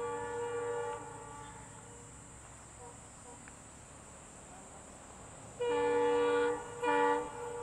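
Indian Railways locomotive horn, a chord of several tones, sounded three times: a blast of about a second at the start, then a longer blast and a short one near the end.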